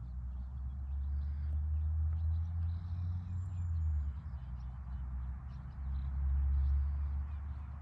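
Outdoor ambience: a steady low rumble with many faint short high chirps and ticks.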